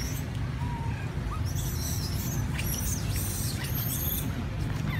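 Young macaques giving a cluster of high-pitched squeaks, starting about a second and a half in and lasting about two seconds, over a steady low rumble.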